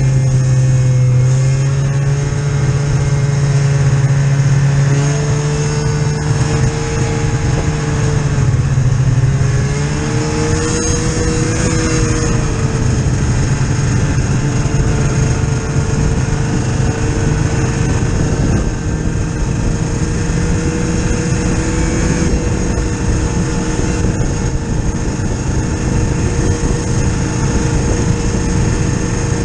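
Snowmobile engine running under way, heard from on board over a constant rush of noise. The engine note shifts up and down several times in the first ten seconds, then holds steady.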